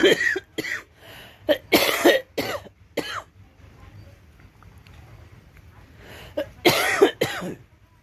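A man coughing in fits from a head cold and congestion: a burst of coughs at the start, several more over the next couple of seconds, then another fit near the end.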